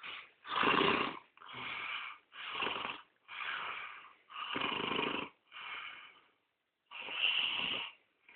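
A man snoring heavily in his sleep: a rasping snore about once a second, seven or so in a row, with a slightly longer pause before the last one.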